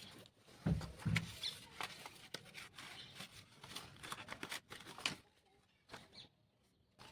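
Paper and card being handled on a work surface: a string of small taps, clicks and rustles, with two louder thumps about a second in.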